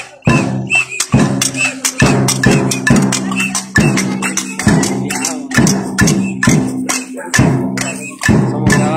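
Rhythmic percussion, sharp strikes two to three times a second, over a steady low hum.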